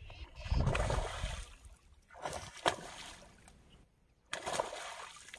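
Water splashing in three short bursts, about a second in, midway (with one sharp click) and near the end, in shallow water where a hooked fish is being played.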